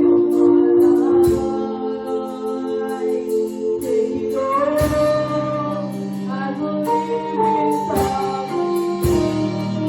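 Church choir singing a gospel song with instrumental accompaniment, sustained sung notes over a steady bass.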